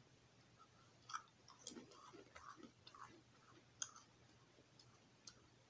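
Faint chewing of Cheez-It cheese crackers: soft, irregular mouth noises with a few sharp clicks.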